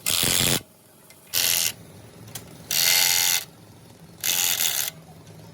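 Four short bursts of a hissing, rattling mechanism, each about half a second long and about one and a half seconds apart.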